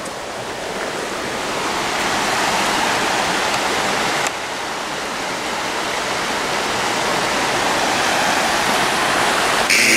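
River water rushing over rocks in shallow rapids: a steady noise that builds slowly, with a brief dip about four seconds in. A short, louder rustle comes right at the end.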